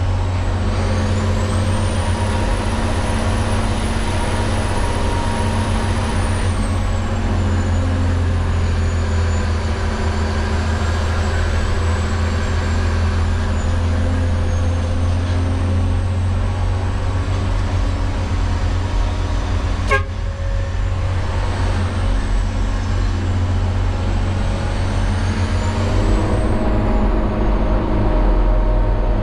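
LGMG CMT96 off-highway dump truck running steadily under way, heard from inside the cab, its low engine rumble constant. A faint high whine rises, holds for a few seconds and falls away, and a single sharp click sounds about twenty seconds in.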